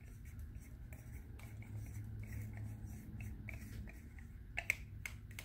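Quiet scraping and tapping of a wooden craft stick against a plastic cup as gold paint is scooped out, with one sharper click about four and a half seconds in.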